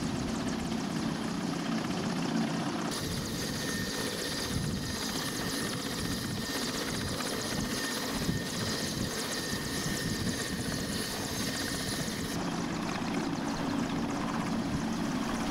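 Mil Mi-17 helicopter's turboshaft engines and rotor running steadily on the ground. About 3 s in the sound turns brighter and hissier, then returns to the deeper hum about 12 s in.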